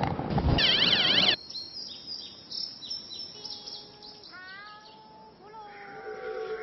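A loud rushing noise with a rapid warbling trill cuts off sharply about a second and a half in. Short bird chirps follow, then a street vendor's long drawn-out sung cry of 'tanghulu' (candied hawthorns), its pitch sliding slowly downward.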